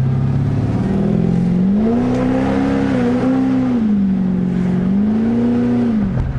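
LS1 5.7-litre V8 of a 1999 Holden R8 Clubsport with a freshly fitted Comp Cams camshaft, revving up from idle, easing off and revving up again, then dropping back to idle near the end.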